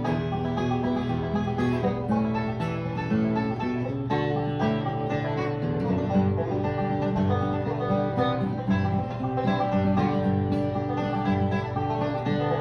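Bluegrass-style background music led by banjo and guitar, played at a steady level.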